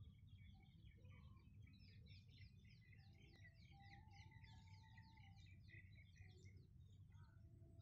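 Birds chirping faintly in a fast, busy run of short notes, with one longer whistled note in the middle, over a steady low rumble. The chirping stops shortly before the end.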